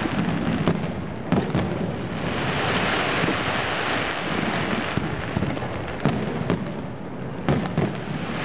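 Fireworks going off: sharp bangs in two clusters, about a second in and again from about six seconds, over a steady hiss.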